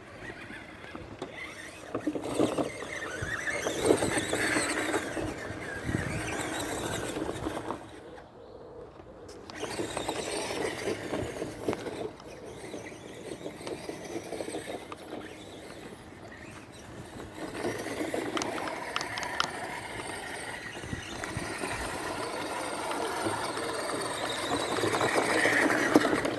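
Electric RC crawler's motor and geared drivetrain whining as it is driven, surging and easing off in stretches, with a brief stop about eight seconds in and the loudest push near the end.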